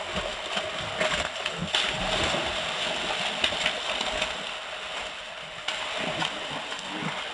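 Water splashing and spattering as fish leap out of a river and fall back inside a net enclosure, a continuous hissing wash with many small splashes.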